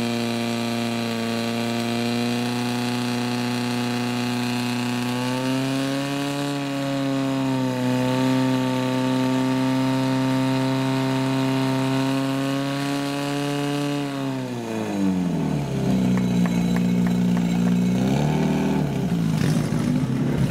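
Portable fire pump engine running at high, steady revs, its pitch stepping up slightly about six seconds in. About fourteen seconds in it is throttled down, gets a short rev a few seconds later, then runs low and rougher.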